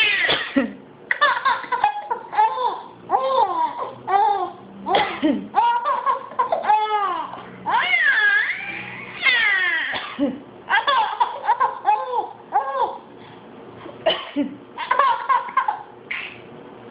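A girl laughing in repeated high-pitched fits, set off each time someone coughs.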